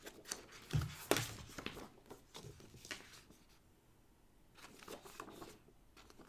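Paper leaflets and a card envelope being handled: scattered rustling and light taps, with a soft thump about a second in and a short lull midway.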